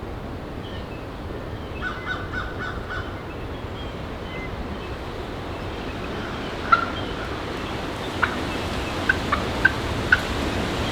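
Rio Grande wild turkey gobbling, a quick rattling run of notes about two seconds in, followed later by a string of short sharp calls, heard over steady wind noise on the microphone.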